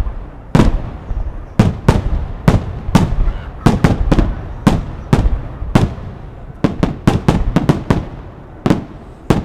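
Fireworks display: aerial shells bursting in quick, irregular succession, about twenty loud bangs, each trailing off in a rumbling echo. The bangs bunch together about four seconds in and again toward the end.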